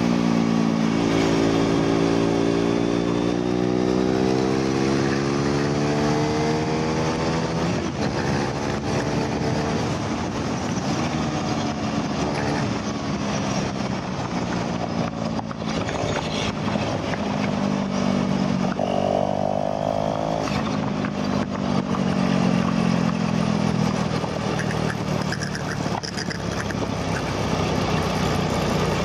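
KTM RC390's single-cylinder engine heard on board at speed, its pitch rising and falling with throttle and gear changes, over a steady rush of wind noise. It eases off near the end as the bike slows.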